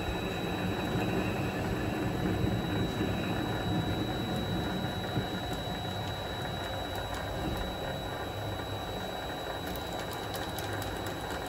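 Mini lathe running steadily under a light facing cut, its custom-ground high-speed steel tool working across the end of a steel piece. A thin, steady high whine sits over the machine noise, with a few light clicks near the end.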